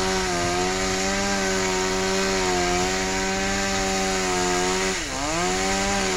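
Chainsaw running at high speed, cutting through a tree limb with a steady high engine note; about five seconds in its pitch drops sharply and climbs back up.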